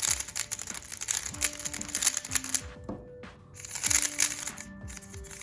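Rapid plastic clacking of a MoYu HuaMeng YS3M ball-core 3x3 speedcube being turned fast. There are two runs of turns with a short pause near the middle, over background music.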